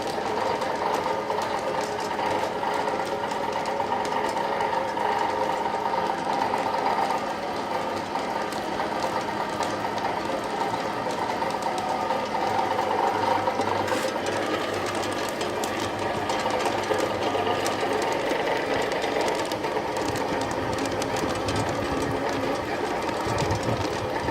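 Horizontal pellet mill running steadily: a continuous mechanical machine noise with rapid fine clicking.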